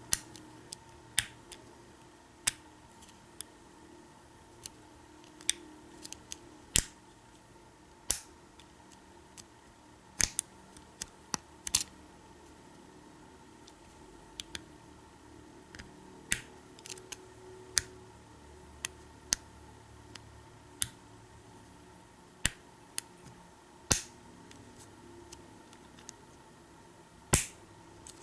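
Lock pick and tension wrench working in a Kwikset deadbolt's pin-tumbler cylinder: scattered sharp metallic clicks, one every second or two, as the pins are picked.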